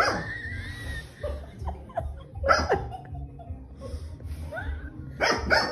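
A person laughing in a few short bursts.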